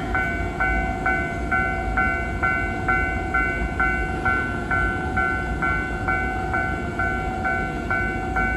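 Japanese railway level-crossing alarm set to its standard low-pitched electronic tone, chiming evenly a little under three times a second over a steady low rumble.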